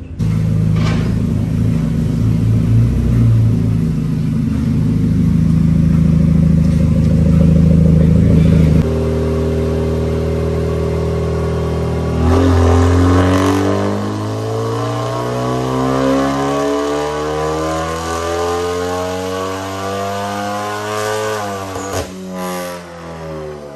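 Hyundai Genesis Coupe 2.0T's turbocharged four-cylinder engine on a chassis dyno. It runs at a steady speed at first. About twelve seconds in it starts a full-throttle pull, climbing steadily in pitch for about ten seconds, then a sharp crack as the revs fall away at the top of the run.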